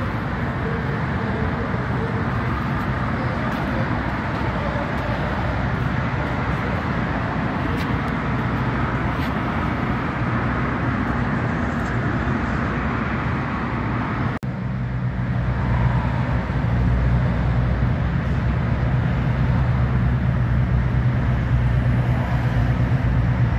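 Steady outdoor vehicle noise: traffic and an engine running with a low, even hum. After a sudden cut about two-thirds of the way through, the engine hum is louder.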